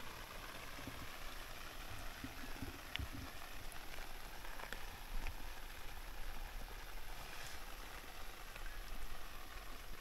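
Rain falling on the standing water of a flooded rice paddy: a steady even hiss with a few scattered drop ticks.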